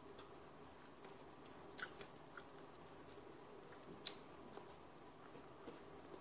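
Faint close-up mouth sounds of a person chewing soft food and eating by hand, with small wet clicks and two sharper smacks about two and four seconds in.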